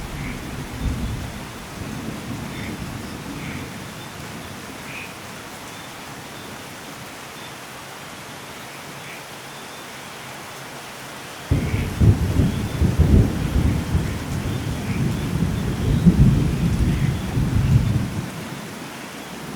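Steady light rain with birds chirping now and then, under rolling thunder. A low rumble dies away over the first few seconds, then a louder rumble breaks in suddenly past the halfway point and rolls on for several seconds.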